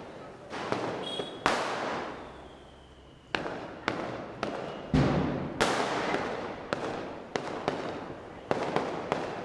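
Diwali firecrackers going off: a string of irregular sharp bangs, each trailing off in a crackling echo, with a heavier, deeper bang about five seconds in. A faint falling whistle sounds between the early bangs.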